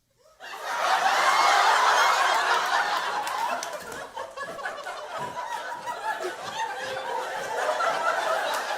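A live theatre audience laughing. The laughter breaks out about half a second in, is loudest for the next couple of seconds, then carries on more softly.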